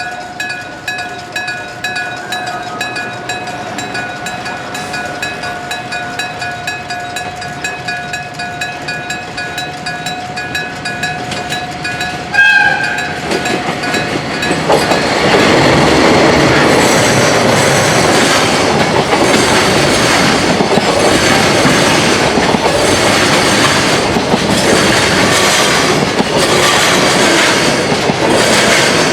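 Electric-gong level-crossing bell ringing rapidly, clanging. About twelve seconds in comes a short blast of a diesel locomotive's horn. Then a freight train of a diesel locomotive and container wagons passes loudly, its wheels clacking over the rail joints.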